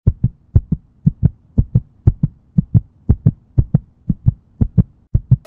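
Heartbeat sound effect: loud paired low thumps in a lub-dub pattern, about two beats a second.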